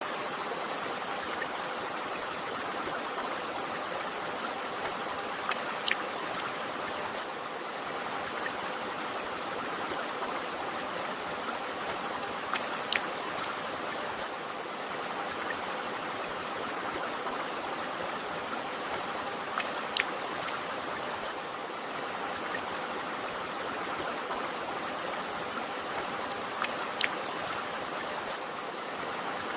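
River water flowing in a steady rush, with brief sharp plinks about every seven seconds.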